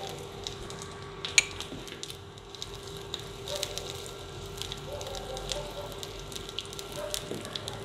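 Cumin and crushed coriander seeds frying in hot oil in a pan, a low sizzle scattered with sharp crackles and pops as they are stirred. A steady hum runs underneath.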